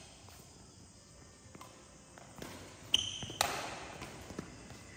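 Badminton racket strikes on a shuttlecock: after a quiet start, two sharp hits about three seconds in, a serve and its return, followed by a few lighter knocks.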